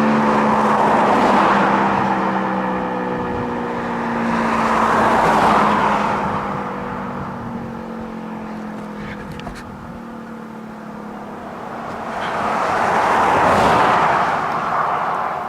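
A Federal Signal outdoor warning siren winding down, its tone slowly falling in pitch and fading out about halfway through. Three cars pass in turn, near the start, about five seconds in and near the end, and these passes are the loudest sounds.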